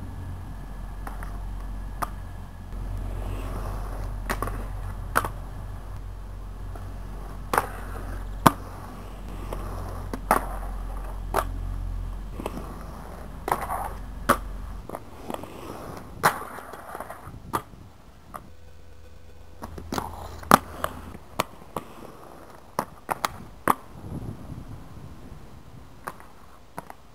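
Inline skates rolling on concrete, with frequent sharp clacks and scrapes as skaters land jumps and grind on concrete ledges. A low rumble runs under the first half and drops away about halfway through.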